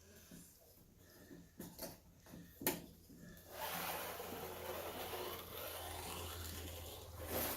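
Thin plastic film sheets from a TV panel being handled: a few sharp clicks, then about four seconds of steady sliding and rustling that ends in a louder swish.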